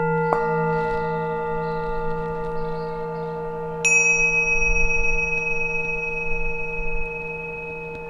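Singing bowls struck and left to ring: a lower bowl struck about a third of a second in, joining one already ringing, then a higher-pitched bowl struck about four seconds in, all sustaining and slowly fading.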